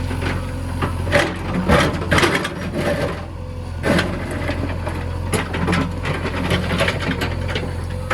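JCB backhoe loader's diesel engine running steadily, with several irregular knocks and clanks over it.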